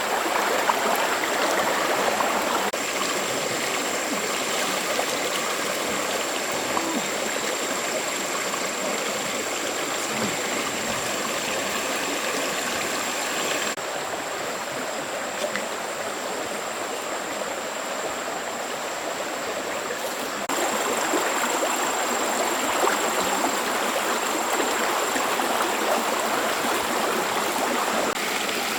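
Stream water flowing steadily, with a thin steady high-pitched tone over it.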